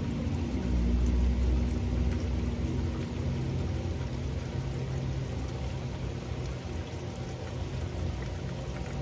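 Steady rain falling, with a low rumble that swells about a second in and then slowly fades.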